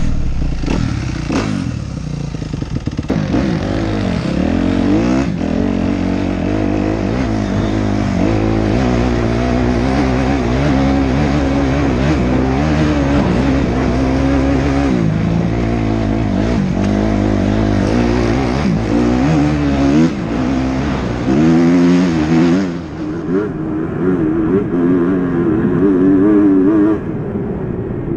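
250cc four-stroke single-cylinder motocross bike engine heard from on the bike while riding, its revs rising and falling over and over.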